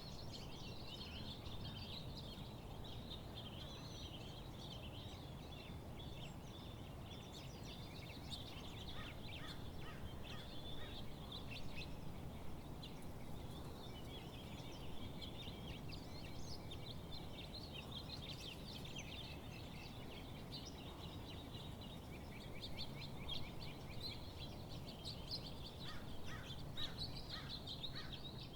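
A dense chorus of many birds chirping and chattering rapidly and without a break, over a steady low background rumble.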